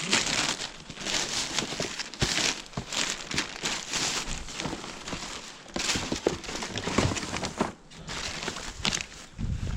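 Plastic rubbish bags and packaging rustling and crinkling in irregular bursts as they are rummaged through by hand.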